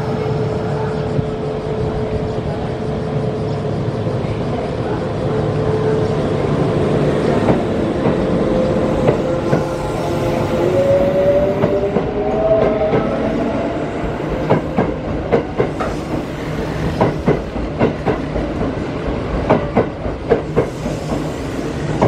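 Kintetsu 2610-series electric train pulling away from a station platform: a steady hum while it stands, then the motor whine rising in pitch as it accelerates from about eight seconds in, followed by the wheels clacking over rail joints, the clacks coming faster near the end.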